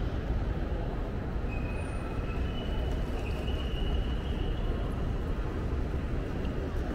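Steady low rumble of train station ambience, with a faint thin high-pitched tone that comes and goes between about one and a half and five seconds in.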